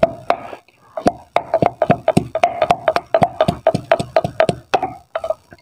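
Wooden pestle pounding in a painted wooden mortar, crushing ginger and garlic into paste: a steady beat of sharp knocks, about three and a half a second, each with a short hollow wooden ring.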